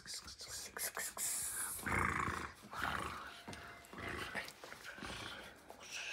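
Kitten play-fighting with a person's hand: a run of short, breathy, unpitched sounds about once a second, with rustling and scratching on the fabric chair seat.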